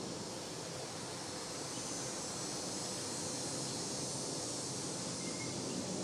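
Steady outdoor ambience: insects droning at a high pitch, swelling a little in the middle, over a constant low hiss.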